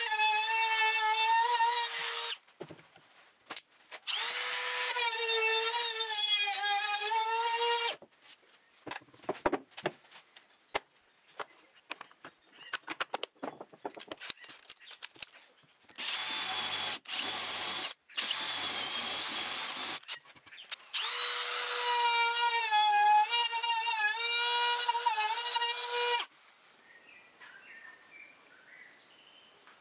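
Cordless trim router running at high speed, a steady whine whose pitch dips as the bit cuts along the wood edge, in three passes with pauses between. Between them come clicks and knocks of handling, and near the middle a cordless drill runs in a few short bursts driving screws.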